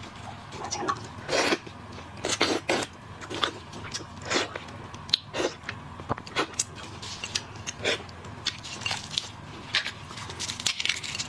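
Close-miked eating sounds of seafood being eaten: irregular crunches, clicks and wet smacks of biting and chewing.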